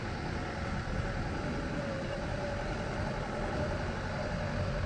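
A motor vehicle's engine running steadily on the move, with a faint wavering engine tone under steady road and wind noise.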